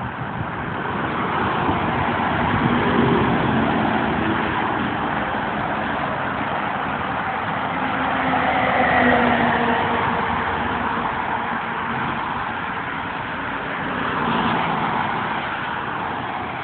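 Freeway traffic passing close by: a steady rush of tyre and engine noise that swells three times as vehicles go past.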